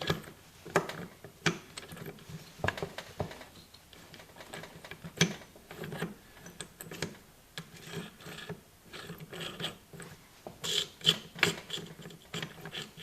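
Maico 660 transmission being shifted through its gears by hand with the engine cases open: irregular metallic clicks and clunks as the shift drum and forks move the gears, with a quicker run of clicks near the end.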